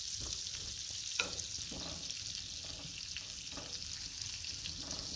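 Butter melting and sizzling in a frying pan, with a steady hiss and a few short scrapes as a utensil pushes the block of butter around the pan.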